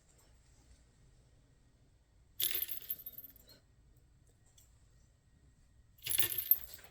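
A small metal jingle bell jingling in two short bursts about three and a half seconds apart, shaken by a playing kitten.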